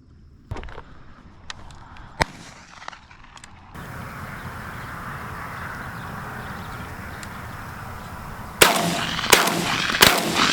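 Shotgun shots at passing doves: three loud reports in quick succession near the end, each with a short echoing tail. Before them, a steady rushing noise and a few faint clicks.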